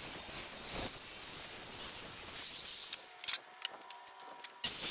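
Circular saw ripping a 2x4 lengthwise, a steady loud cut that stops abruptly about three seconds in. A few light knocks follow, then the sawing starts again suddenly near the end.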